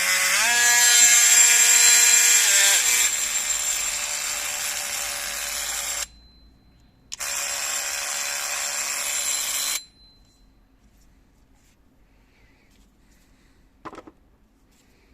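Bosch GOP 12V-28 cordless oscillating multi-tool running with no load: a loud, steady buzzing whine. It speeds up in the first second and drops in speed a few seconds later. It cuts off about six seconds in, runs again about a second later for roughly two and a half seconds, then is switched off; a single click follows near the end.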